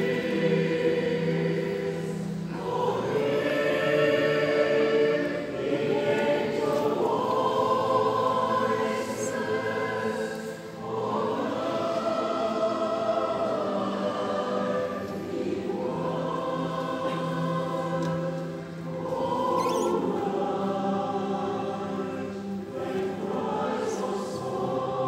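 Choir singing a slow hymn in long held phrases of a few seconds each, with short breaths between phrases, heard in a large church hall.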